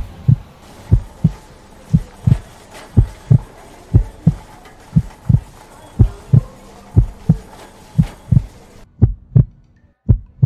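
Heartbeat sound effect: low double thumps, lub-dub, about once a second.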